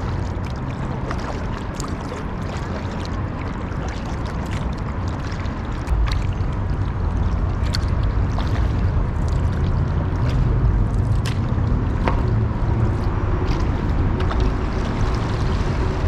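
Water splashing and dripping around an inflatable kayak as it is paddled, with many short scattered splashes over a steady low rumble; it gets louder about six seconds in.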